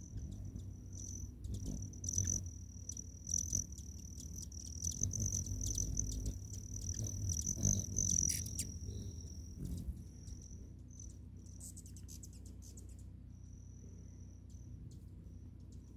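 Hummingbirds at a feeder: a high, steady buzzing trill that breaks into short pieces after about ten seconds, with sharp chip notes and clicks scattered through it, over a low hum.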